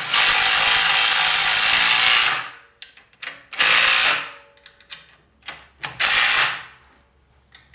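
Cordless impact driver hammering propeller bolts in. A long burst of about two seconds comes first, then two short bursts about 3.5 and 6 seconds in, with faint clicks between as the bolts draw the threaded drive lugs into the hub until they seat.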